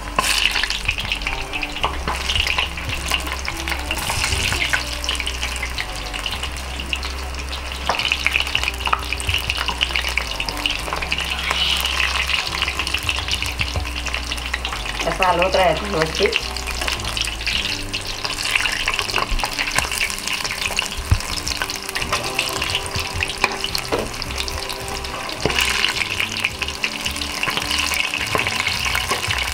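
Corn-kernel pakoras in gram-flour batter deep-frying in hot oil: a steady, dense sizzle and crackle, with a slotted metal spoon stirring them now and then.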